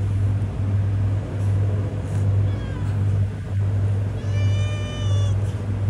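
Stray cat meowing: a short faint meow about two and a half seconds in, then a longer, drawn-out meow a little after four seconds. Under it, a loud low hum swells and fades about once a second.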